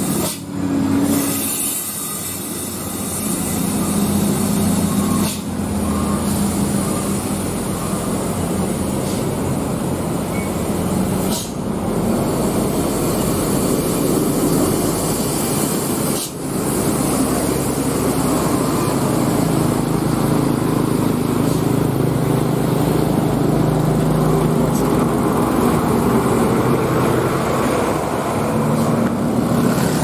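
Diesel engines of large tour coaches climbing a steep grade under load and passing close by, a continuous heavy engine drone that shifts in pitch as the buses go by.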